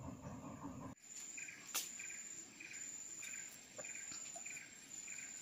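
Insects calling: a steady high whine with a short chirp repeating at an even pace, a little under twice a second. A low rumble fills the first second and cuts off suddenly, and a single sharp click follows soon after.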